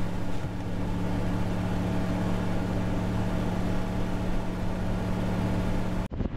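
A vehicle engine idling steadily as a low, even hum under a hiss of wind. It cuts off abruptly near the end.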